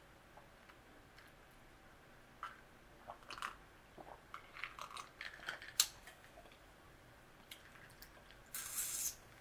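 Sips, gulps and small clicks of drinking from a glass of iced tea with ice. Near the end, canned iced tea is poured from the can into the glass in a short hissing splash.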